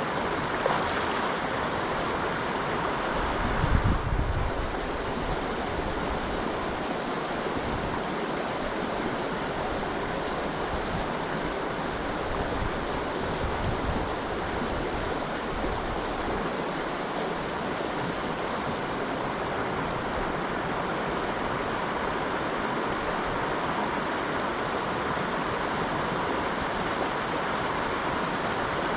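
Small mountain trout creek running, a steady rush of flowing water. A brief low rumble comes about four seconds in.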